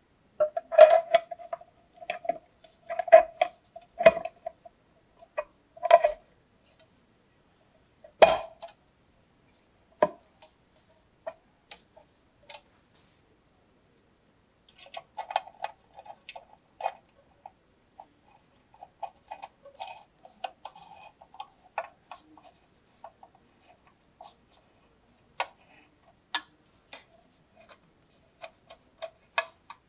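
Metal parts of a hand signal lantern being fitted together: clinks and knocks, each of the early ones followed by a brief ringing from the metal housing, with one louder knock about eight seconds in. Then a screwdriver turns small screws into the lantern's base, with light scraping and ticking.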